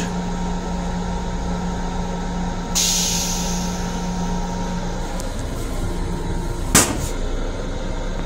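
Steady running noise of a Long Island Rail Road M7 car heard from its restroom. About three seconds in comes a short burst of air hiss that fades over a second, a steady hum cuts off around five seconds, and near the end the toilet lid drops shut with one sharp knock.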